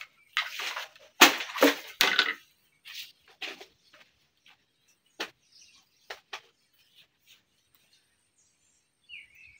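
Handling noises: a burst of rustling and knocking, then a few scattered clicks as plastic packaging and a power cord are handled. A short bird chirp near the end.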